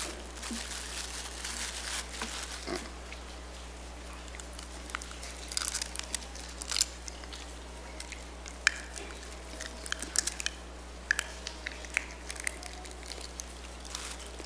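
Plastic communion packaging crinkling and crackling as it is handled and peeled open in the hands, with many short sharp clicks, busiest in the second half.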